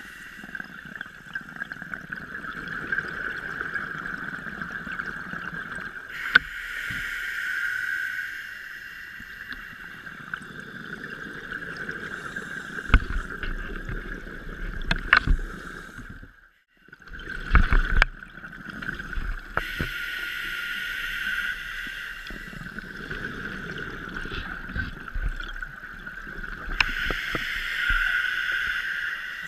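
Scuba diver's regulator breathing underwater, with exhaled bubbles gurgling in swells every six or seven seconds over a steady high whine, and a few sharp clicks.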